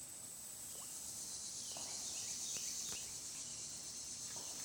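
Insect chorus: a steady high-pitched trilling buzz, with a few faint short chirps over it.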